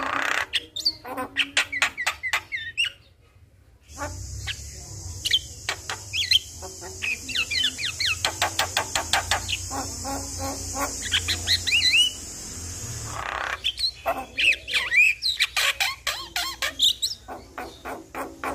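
Javan myna (jalak kebo) singing: fast runs of rattling clicks mixed with short sliding whistles, broken by a brief pause about three seconds in. Through the middle stretch a steady high hiss and a low hum sit under the song, then the chattering goes on without them.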